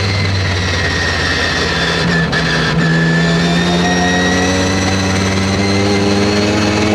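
Mazda RX-7's 20B three-rotor twin-turbo rotary engine running hard, heard from inside the cabin. The note holds fairly steady for about two and a half seconds, then climbs slowly as the revs build, with a high whine over it.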